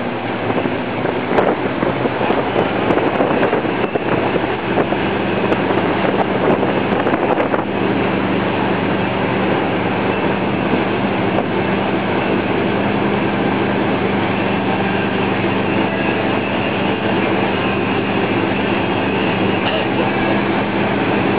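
Boat engine droning steadily under way, over the continuous rush of churning wake water and spray.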